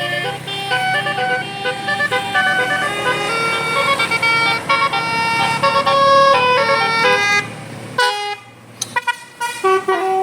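Bus telolet horn of the Basuri type, its multi-tone trumpets playing a quick melody of short stepped notes. The melody breaks off about eight seconds in, with a brief gap and a few short toots after.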